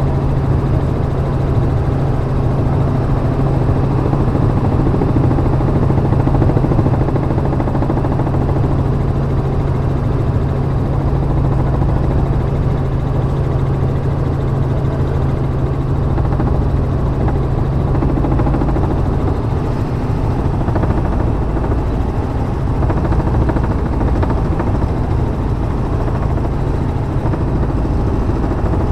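Robinson R44 helicopter in flight heard from inside the cabin: a steady drone of the rotor and piston engine with a strong, constant low hum.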